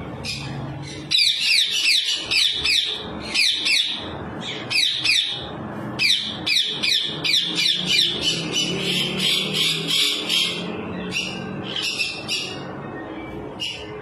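Shrill, repeated squawking calls of a parrot: rapid runs of short falling notes, about three to four a second, in bursts that thin out to scattered calls near the end.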